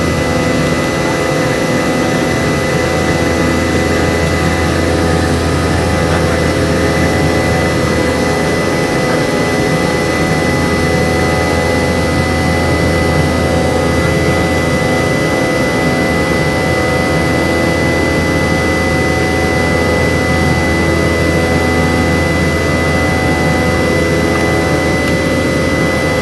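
Inside the cabin of a Boeing 717-200 during the climb, right beside its tail-mounted Rolls-Royce BR715 turbofan: steady jet engine noise with a constant high whine and a low hum underneath.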